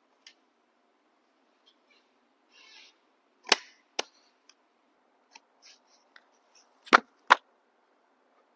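Sharp clicks and taps of hard objects being handled on a work surface. The loudest come as two pairs of knocks about half a second apart, with a brief rustle before the first pair and lighter clicks in between.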